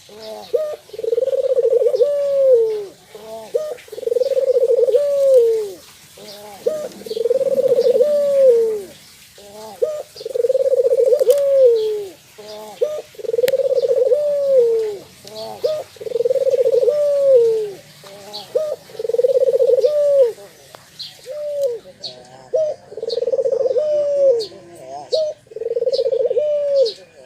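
White, red-eyed puter (Barbary dove) cooing repeatedly: about ten long rolling coos, each arching and falling away at the end, with short notes between them. Faint high chirps from small birds can be heard behind it.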